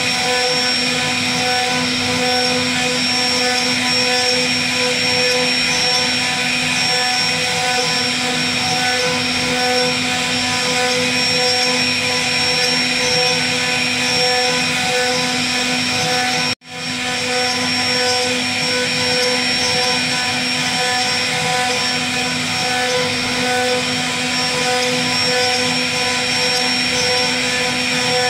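CNC router spindle running with its bit carving into a wooden panel: a steady whine of several pitches over the hiss of the cut. The sound cuts out for an instant a little past halfway through, then resumes.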